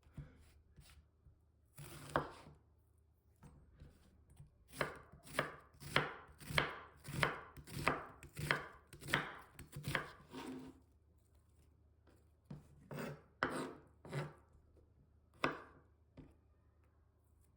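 Kitchen knife chopping food on a cutting board: a steady run of knocks about two a second in the middle, with a few single chops before and after.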